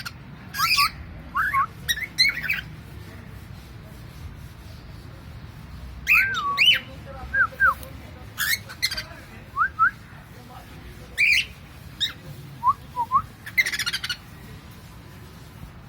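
Cockatiel calling in short bursts: harsh squawks mixed with brief whistled notes that slide up and down, coming in three clusters with pauses of a few seconds between them.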